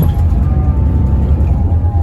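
Daewoo FX116 bus on the move, its engine and road noise a steady low rumble, with music playing over it.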